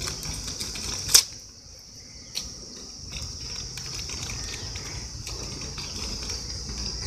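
A courier mailer being opened by hand: a sharp crackle of the packaging about a second in and a smaller one a little over two seconds in. Under it, a steady high-pitched insect chirring.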